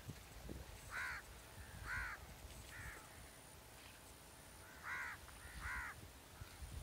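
A crow cawing about five times: three calls about a second apart, a pause, then two more close together.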